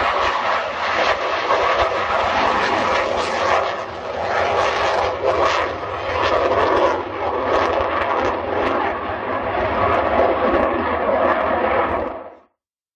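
North American F-100 Super Sabre jet passing overhead, a loud rushing jet-engine noise that swells and dips, with wind buffeting the microphone. The sound cuts off abruptly near the end.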